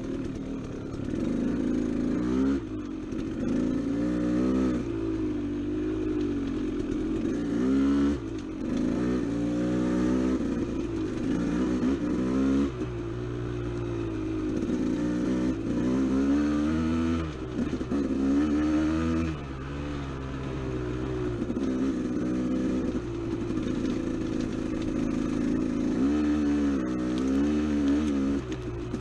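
Dirt bike engine running under load, its pitch rising and falling every second or two as the throttle is worked and gears change.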